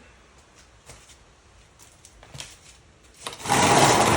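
Steel tape measure blade being pulled out of its case: a loud rattling rasp lasting about a second near the end, after a few light clicks of handling.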